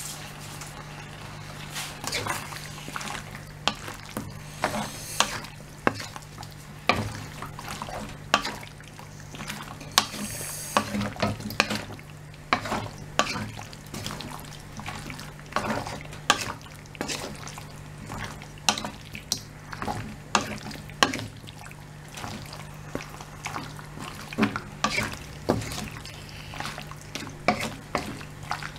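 Wooden spatula stirring beef and peppers in a wok, with many irregular clacks and scrapes against the pan. A steady low hum runs underneath.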